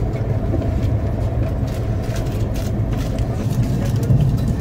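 Steady low rumble of a Rajdhani Express running, heard from inside the passenger coach.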